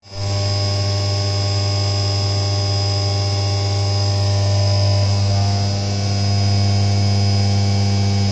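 CNC vertical mill cutting a 6082 aluminium block under flood coolant: a steady machining hum with a high whine, running evenly throughout.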